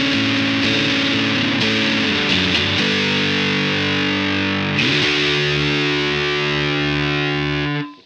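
Electric guitar played through the Southampton Pedals Indie Dream's fuzzy, saturated drive section, letting distorted chords ring. The chord changes about three seconds in and again about five seconds in, and the playing stops sharply near the end.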